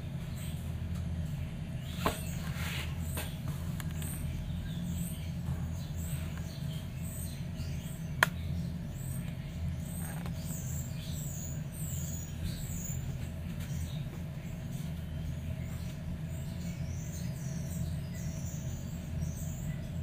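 Steady low hum of room noise with faint, high-pitched chirps or squeaks recurring throughout. Two sharp clicks stand out, one about two seconds in and a louder one about eight seconds in.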